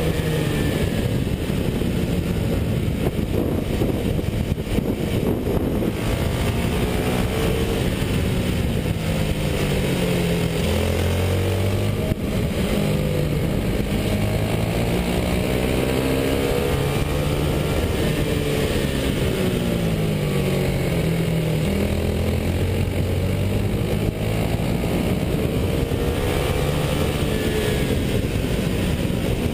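Racing kart's engine heard from on board under hard driving, its pitch climbing on the straights and dropping twice as the kart slows for corners, then revving back up.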